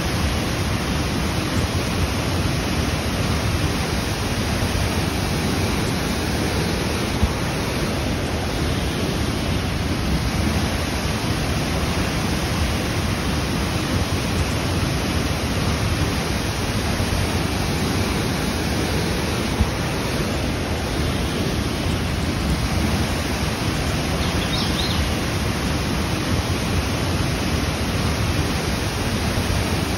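Steady rush of a waterfall, an even roar of falling water with no pauses.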